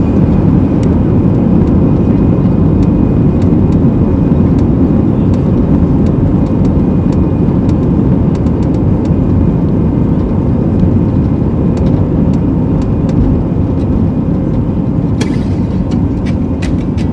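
Airliner jet engines running at high thrust during the take-off roll, heard from inside the cabin as a loud, steady rush with a faint high whine. The aircraft is an easyJet Airbus A320-family jet.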